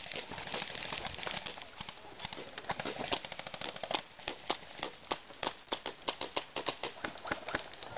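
Airsoft gunfire: a dense, rapid patter of sharp clicks for the first few seconds, then irregular single snaps several times a second.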